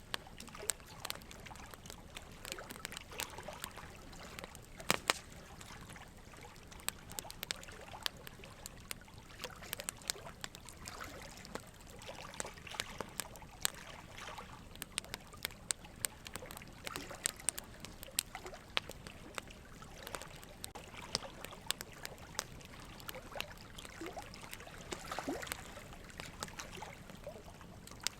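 Quiet ambient background: a low steady hiss with frequent, irregular soft crackles and clicks.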